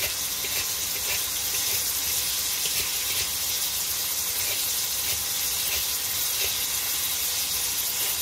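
Ground pork and sliced onion frying in a wok, giving a steady sizzle.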